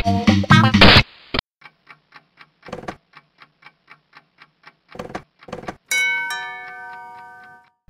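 Guitar music cuts off about a second in with a short burst of static hiss. Then a clock ticks about four times a second, with a few soft thuds. About six seconds in, a single bell chime rings out and fades over nearly two seconds.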